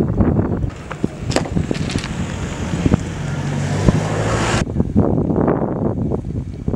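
A passing coach's engine running, with wind buffeting the microphone. A little over halfway through the sound cuts abruptly to a duller outdoor background with more wind noise.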